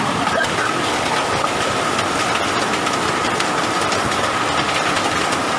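Hailstorm with heavy rain: a steady dense rush of falling water and ice, with many sharp ticks of hailstones striking, and a steady high tone running through it.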